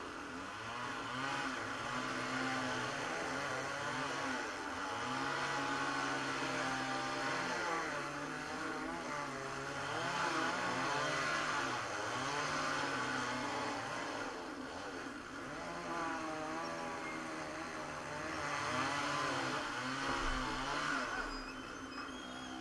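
An engine running and revving up and down, its pitch stepping and sliding with several swells in loudness.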